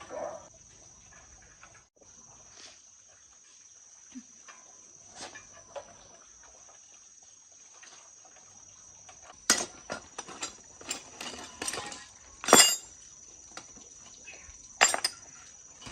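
Sharp metallic clinks and knocks, several in the second half, as tools and parts are handled on an old concrete mixer, over a steady high cricket chirr.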